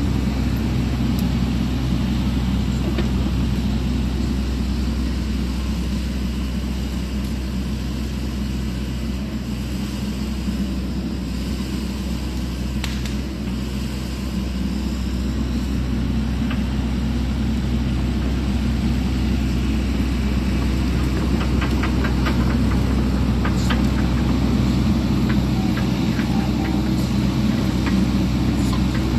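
Sany SY80 excavator's diesel engine running steadily. It is a little quieter about a third of the way in as the machine moves away and louder again as it comes back. Near the end there is a run of sharp cracks and clicks.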